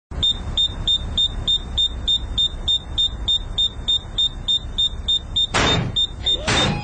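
Photocopier beeping its paper-jam warning: a rapid, even run of short high beeps, about three a second. Near the end two loud bursts of noise break in over the beeping.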